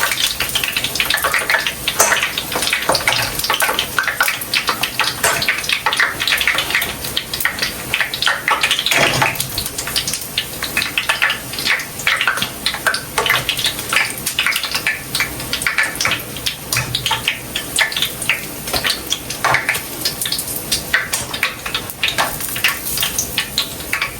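Fried dumplings sizzling and crackling in a pan of hot oil, a steady dense crackle.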